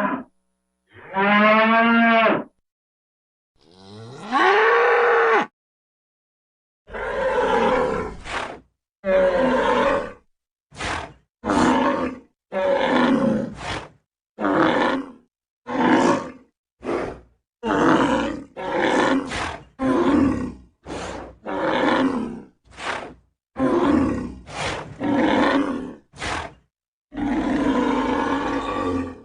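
Cattle calling: two long pitched moos, a rising call, then a quick run of short, rough bellows one after another, with a longer bellow near the end. Each call stops abruptly into silence.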